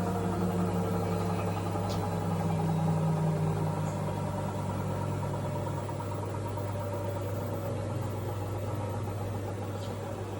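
Cecotec Bolero Dresscode 7410 front-loading washing machine running with a steady hum, its inverter motor whine slowly falling in pitch and fading over the first half as the drum slows down.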